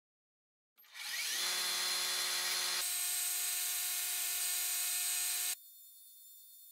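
Metal lathe starting up and running, its motor and gear whine rising briefly in pitch as it comes up to speed about a second in, then running steadily while it turns a thin steel rod in a knurling device. It cuts off suddenly near the end, leaving only a faint high hum.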